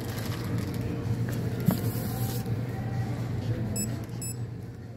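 Store checkout ambience: a steady low hum under a busy background wash, a sharp click a little under two seconds in, and two short electronic beeps close together near the end.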